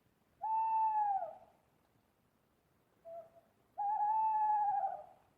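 Owl hooting: two long hoots of about a second each, the first dropping in pitch at its end, with a short lower note just before the second.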